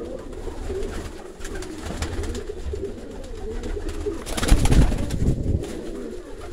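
Domestic pigeons cooing continuously, low and wavering, in a small loft. About four and a half seconds in comes a short, loud burst of noise.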